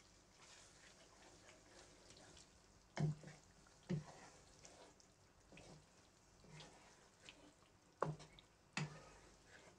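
Spatula stirring cream into chicken pieces in a frying pan: a handful of short scrapes and taps against the pan, the clearest about three and four seconds in and two near the end, with near quiet between.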